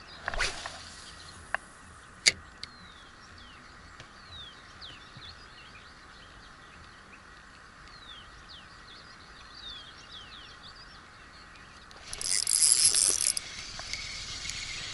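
Small birds calling with short falling chirps over a steady background hiss, with a sharp click about two seconds in. About twelve seconds in comes a loud hiss lasting just over a second: a spinning cast, the braided line whizzing off the reel. The spinning reel then starts winding the lure back.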